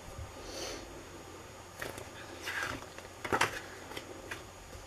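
A paperback picture book being handled and a page turned: a few short, soft paper rustles.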